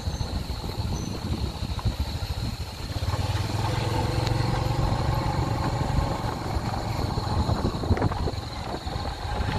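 Motorbike engine running with a low rumble, its engine note growing louder and steadier from about three seconds in, then easing off a few seconds later.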